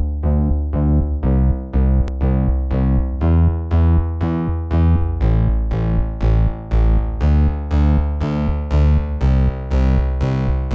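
Background music: electronic keyboard notes struck in a steady rhythm, about two a second.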